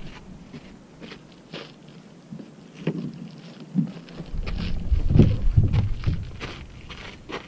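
Wind buffeting the action-camera microphone in uneven gusts from about four seconds in, over scattered small knocks and rustles of handling or movement.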